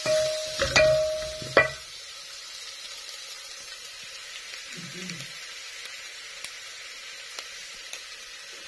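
Background music with a few beats ends about two seconds in. Then vegetables sizzle steadily as they fry in a pan, with a few light clicks of stirring.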